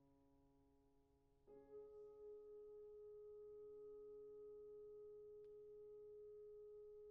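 Wind ensemble playing softly: a chord fades away, then about a second and a half in a quiet held chord enters and sustains steadily.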